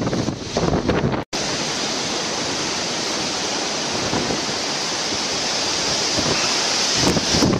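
Hurricane Sandy's storm wind blowing steadily, with gusts buffeting the microphone as low rumbles early on and near the end; the sound drops out briefly about a second in.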